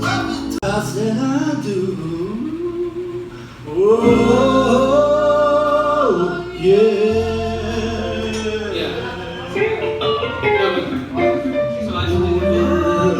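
Live rock band soundcheck: a man sings a melody over guitar, holding one long note midway, and deep low notes come in about seven seconds in.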